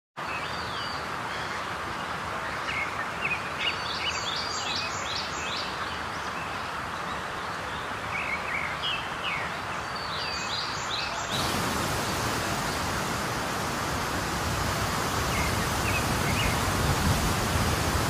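Steady rushing of falling water with birds chirping over it in two short bursts of twittering calls. About eleven seconds in, the water sound becomes a fuller, slightly louder rush.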